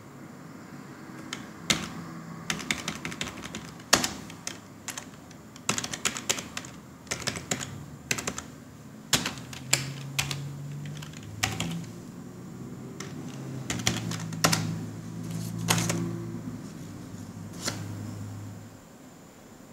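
Typing on a computer keyboard: irregular runs of key clicks with a few single, harder presses. A low hum runs under the second half and stops near the end.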